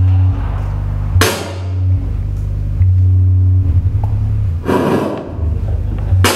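Electronic noise music from hand-built synthesizer boxes: a loud, low droning tone that cuts in and out in blocks, broken by sharp bursts of hiss about a second in, near five seconds, and again near the end.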